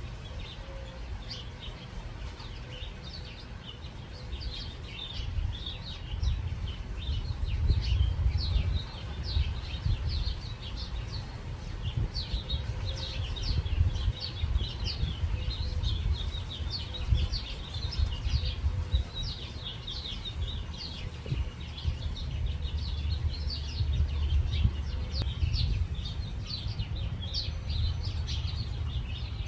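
Many small birds chirping together in a busy, continuous chatter of short high chirps, over a steady low rumble.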